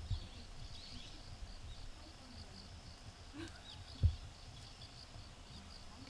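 Insects, crickets by their sound, chirping steadily in a high pulsing trill, with a few short bird chirps. A dull low thump comes right at the start and another about four seconds in.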